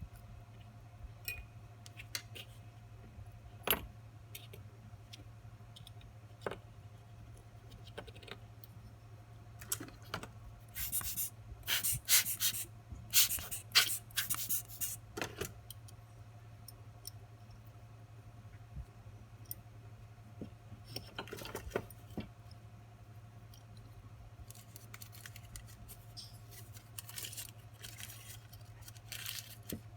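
Small metal watchmaker's tools clicking and scraping against the parts of a Swiss Berex pocket watch movement as it is assembled: irregular light ticks, with clusters of louder scratchy clicks about ten to fifteen seconds in and again near the end. A steady low hum runs underneath.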